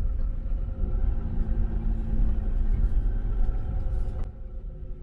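Car rolling slowly on a sandy gravel road: a steady low rumble of tyres and engine, which drops away abruptly about four seconds in.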